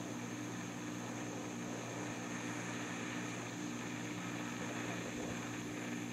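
Handheld butane torch flame hissing steadily with a low hum under it, heating a thick copper cable lug so that it melts into the notch cut in the lug.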